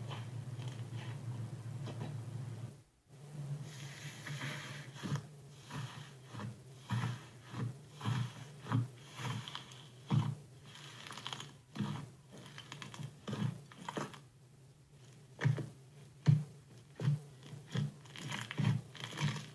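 Slime being squeezed and poked by hand, giving a run of short sticky pops and crackles, roughly one or two a second, over a steady low hum.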